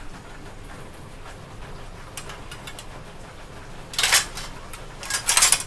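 Spatula stirring and scraping panang curry paste as it fries in a pan, at the stage where the paste is cooked until its oil separates. A few faint scrapes come first, then two louder scrapes about four seconds in and near the end.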